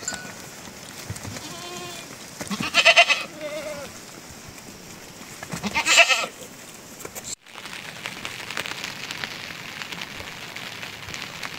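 Small livestock bleating: two loud calls a few seconds apart, with a fainter one just before them. After a cut about seven seconds in, a steady hiss of rain.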